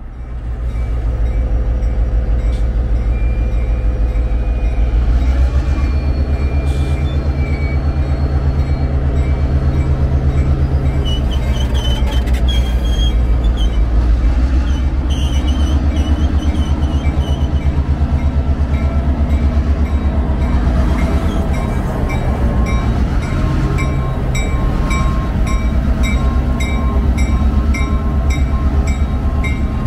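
EMD GP38-2 diesel-electric locomotive's 16-cylinder two-stroke diesel rumbling steadily with a deep throb as it rolls past at low speed. A faint wavering squeal comes about twelve seconds in, and a regular ringing pulse at a few strokes a second runs through the last eight seconds.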